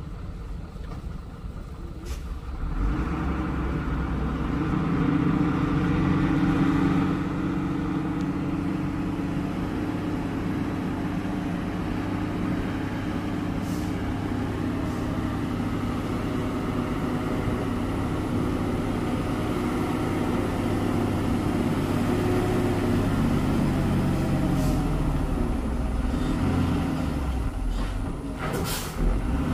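Diesel engines of heavy trucks working slowly uphill under load, a truck towing a tronton truck loaded with an excavator up a steep climb. The engine noise rises about three seconds in and then holds steady, with a short burst of noise near the end.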